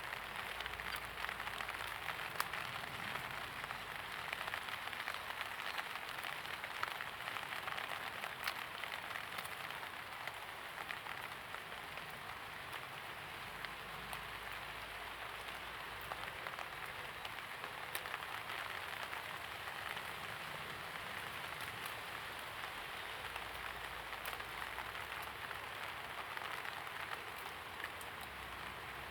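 Steady light rain pattering on surfaces, with many small drop clicks scattered through an even hiss.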